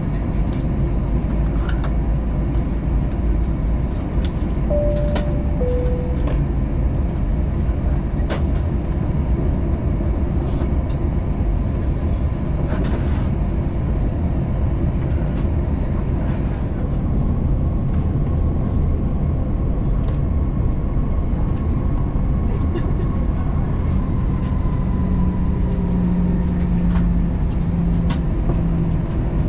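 Steady low rumble of an Airbus A320's cabin with the jet engines and air systems running. A two-note falling cabin chime sounds about five seconds in, and a steady low engine hum comes in near the end.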